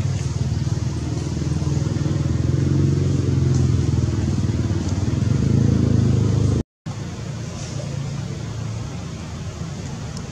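Steady low motor hum, like an engine running nearby. It breaks off for an instant about two-thirds through, then carries on a little quieter.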